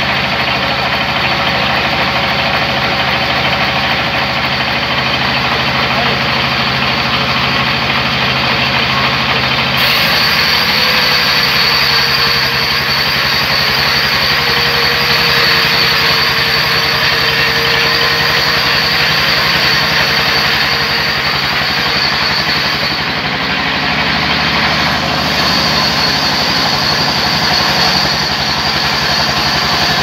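Large sawmill band saw running and ripping lengthwise through a big log as it is fed along the saw table, a steady machine drone with a motor hum underneath. About ten seconds in the sound turns brighter, with a high steady whine joining it.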